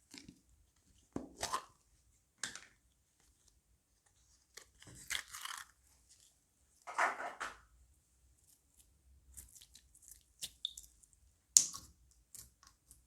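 Crunchy slime being worked by hand, giving irregular crackling, crunching bursts with short quiet gaps between them; the sharpest crackle comes near the end.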